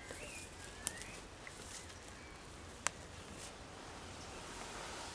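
Quiet woodland ambience with a few faint bird chirps in the first second or so. Two sharp clicks come about two seconds apart, and a soft rustle swells near the end.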